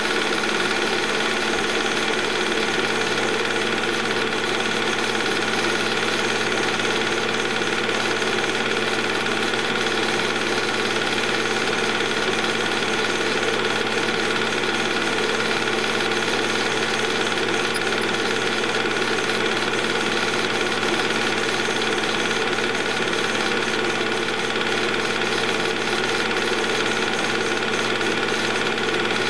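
Movie projector running: a loud, steady mechanical whir with a rapid, even clatter, unchanging throughout.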